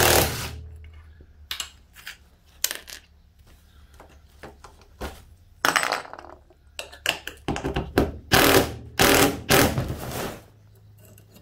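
Cordless driver working in short bursts to undo the bolts holding a metal tent-hinge bracket to the rotten board, with metallic clinks from the nuts and bolts.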